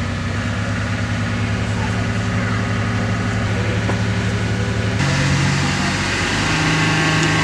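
Off-road four-wheel-drive truck's engine running at a steady low idle, then, after an abrupt change about five seconds in, at a higher note that steps up again a second later.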